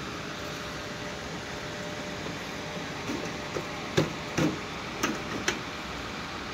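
Steady background noise, with a cluster of short, sharp sounds about three to five and a half seconds in, the loudest near four seconds.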